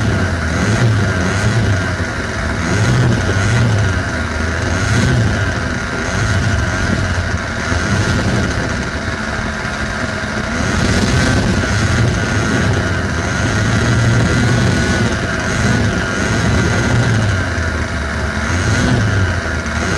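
O.S. 61 SF two-stroke glow engine on an Ultra Easy Stick RC plane running at low throttle while the plane taxis on grass, heard right up close from a camera mounted on the airframe. The level swells and eases every second or two.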